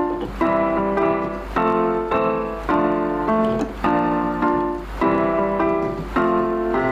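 Background piano music, a steady run of notes and chords at an even pace.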